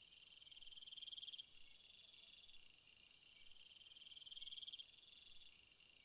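Forest ambience: a faint chorus of high trilling calls from night creatures. One louder trill swells up and stops twice, about a second in and again about four seconds in.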